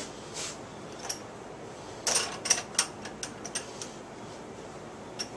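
A shotgun with a towel-wrapped receiver being set into a bench vise and clamped down: a run of sharp clicks and knocks of metal handling, densest about two to three seconds in.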